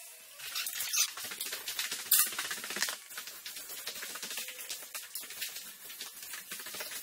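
Dense scratchy rustling and crackling of paintbrushes scraping over a painted wall, with a couple of louder scrapes in the first few seconds.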